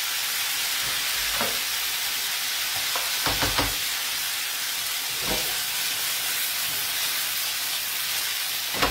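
Green gnocchi with vegetables and guanciale sizzling in a frying pan as the pan is tossed and stirred with a wooden spoon. A steady hiss runs under a few knocks of pan and spoon, with a quick run of three about three and a half seconds in and the loudest knock near the end.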